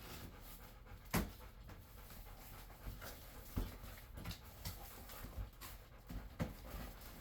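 A dog panting close by, with a few sharp knocks and scrapes as a cardboard box is opened and handled, the loudest about a second in.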